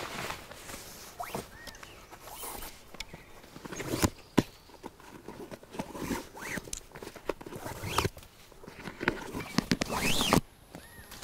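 A bootlace being pulled out of a leather hiking boot: irregular scrapes and short sliding sounds as the lace runs through the metal hooks and eyelets, mixed with rustling of grass and clothing and a sharp knock about four seconds in.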